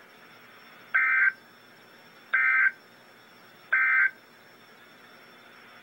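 Emergency Alert System end-of-message signal: three short bursts of warbling two-tone digital data (the SAME "NNNN" code), about a second and a half apart, marking the end of the alert broadcast.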